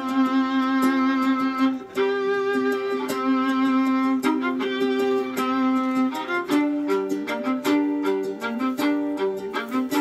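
Violin playing a melody of long held notes over a plucked-string accompaniment that keeps a steady rhythm.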